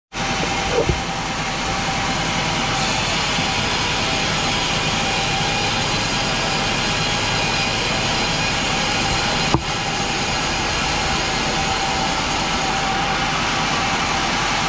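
Chainsaw engine running steadily at high speed while cutting a large pine log, with two brief knocks, one about a second in and one past the middle.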